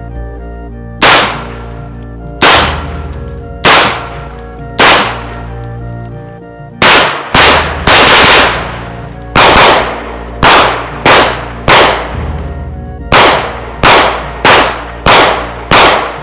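An AR-style .410 shotgun fired about twenty times: single shots about a second apart at first, then quicker strings of shots about half a second apart, each with a short ringing tail. Background music plays underneath.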